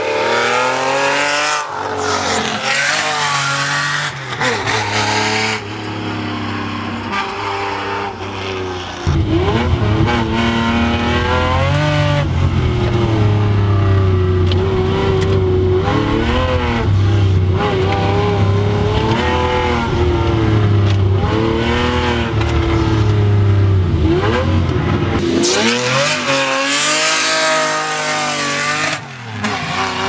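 Race-tuned 6.0 V12 of a Jaguar XJS, with race camshafts and a full equal-length tubular exhaust, driven hard up a hill climb: revving high, then dropping in pitch as it changes gear, again and again. From about nine seconds in until near the end it is heard from inside the cabin, heavier and louder, before it is heard from outside again.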